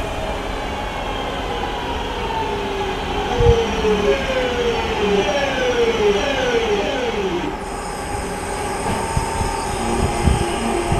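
Class 323 electric multiple unit approaching, its traction motors whining in tones that slide down in pitch again and again as it slows, over the rumble of wheels on rail. About two-thirds of the way through the sound changes abruptly and a higher steady whine joins the train noise.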